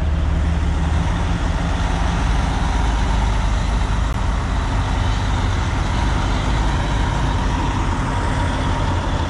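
Heavy diesel excavator engine running steadily, a deep low hum with constant mechanical noise over it; the note shifts slightly about a second in.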